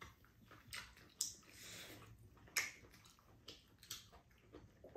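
Faint eating sounds of two people sharing spicy rice cakes: chewing and mouth smacks, with about half a dozen light, sharp clicks of chopsticks and a spoon against bowls.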